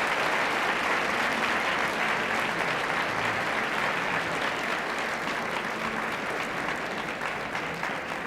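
Concert-hall audience applauding, a dense even clapping that gradually thins out, with single claps standing out more near the end.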